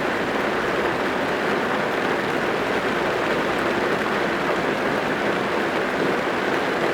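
Rain falling steadily on a car's roof and windows, heard from inside the car as a dense, even patter with no separate drops standing out.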